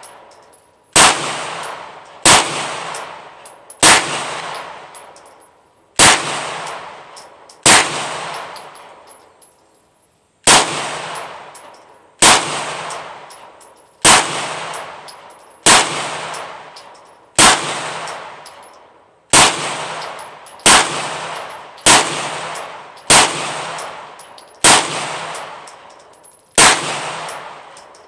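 A 9mm Canik TP9SFX pistol fired slowly and deliberately, about sixteen single shots one to two seconds apart with a longer pause near the middle. Each shot echoes and dies away under a covered range roof.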